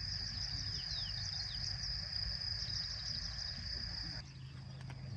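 Outdoor nature sounds: a steady high-pitched insect trill, with many short, falling bird chirps over it. The trill stops abruptly about four seconds in.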